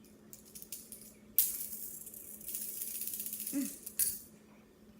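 Fidget spinner flicked and spun by hand, giving a fast, high-pitched metallic rattle for about two and a half seconds and ending in a sharp click. The spinner is one its owner calls ruined, so the rattle comes from a worn-out spinner.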